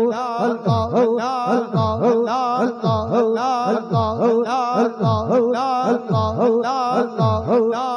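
Rhythmic Sufi zikr music: a steady drone with a wavering chanted or played line above it, and a deep low note that dips and rises about once a second as the beat.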